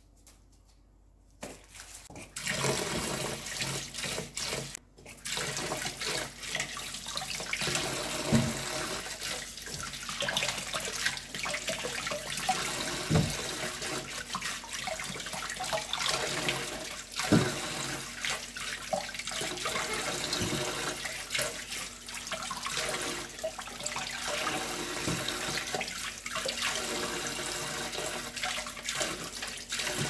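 Kitchen tap running into a stainless-steel sink as scallions are rinsed by hand, with the water splashing. The water starts about two seconds in, and a few sharp knocks stand out over it.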